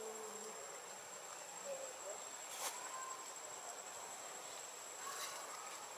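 Steady, high-pitched insect drone, a continuous single tone in the forest background, with a few faint short calls and a soft click mixed in.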